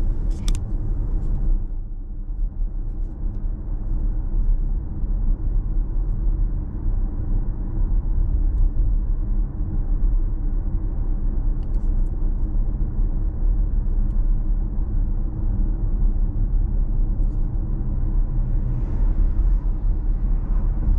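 Cabin noise inside an electric Genesis GV70 driving at about 60 km/h: a steady low rumble of tyre and road noise with no engine sound, heard in the car after sound-deadening was fitted.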